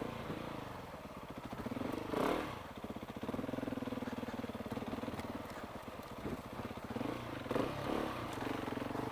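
Motorcycle engine running at low speed on a trail, its revs rising and falling as the bike is picked around an obstacle, with a brief surge about two seconds in.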